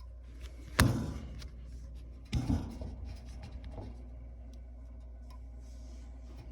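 Handling noise at a gas heater's controls: a sharp knock about a second in, then a brief scratchy rustle, and a second knock with scraping near two and a half seconds. A low steady hum runs underneath.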